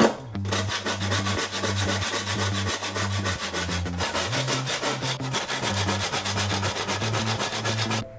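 Hand saw cutting through a wooden plank in rapid, even back-and-forth strokes, stopping abruptly near the end.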